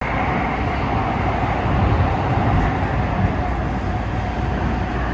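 Los Angeles Metro light rail train running: a steady rumble with rolling noise, starting abruptly as the sound cuts in.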